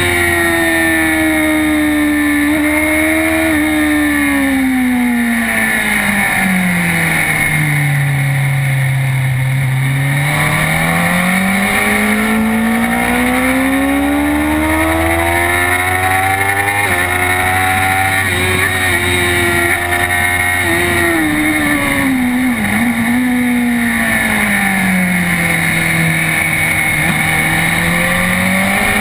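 Sport motorcycle engine heard from on board at speed on a race track, its pitch rising and falling as the rider accelerates and slows: it drops to a low note twice, about a third of the way in and near the end, and climbs hard in between.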